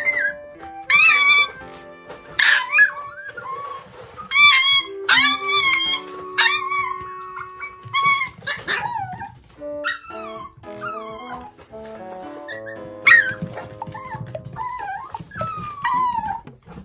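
Toy poodle puppy yelping and screaming shrilly, over and over, demanding its food. Some cries fall in pitch, and they come every second or two.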